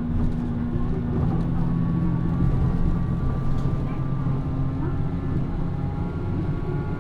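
Mitsubishi Fuso Aero Midi-MK bus (PA-MK25FJ) running, heard from inside the cabin: a steady diesel engine note with a thin high whine over it.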